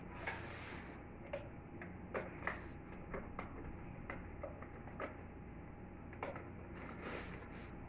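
Irregular light clicks and taps of plastic parts being handled while a split air conditioner's indoor unit is taken apart, over a faint steady hum.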